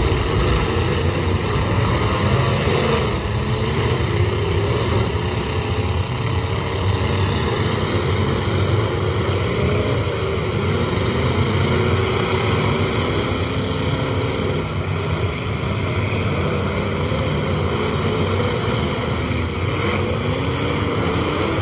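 Many demolition derby cars' engines running at once, a loud, continuous din whose revs rise and fall as the cars accelerate and ram each other.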